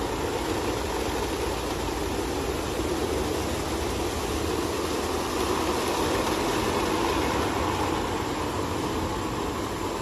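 Christ Genius Vitesse C160 rollover car wash running through its wash cycle: a steady, even rush of machine and water noise that swells slightly about halfway through.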